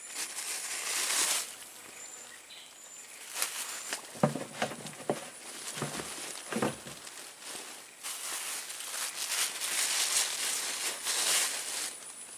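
Swamp ambience: a high hissing noise, like insects or rustling reeds, that swells near the start and again in the second half. A few short, lower sounds and clicks come in the middle.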